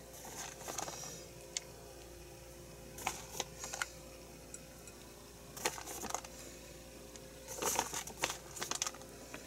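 Crinkly rustling in short bursts, four or five times, from handling a plastic packet of shredded cheese and sprinkling the cheese by hand onto slices of bread.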